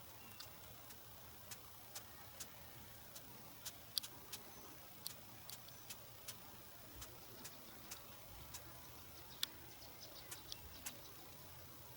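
Many tiny, sharp clicks and puffs at an irregular pace from a two-month-old wild rabbit nibbling dandelion seed heads and giving little sneezes. The two loudest come about four and nine and a half seconds in.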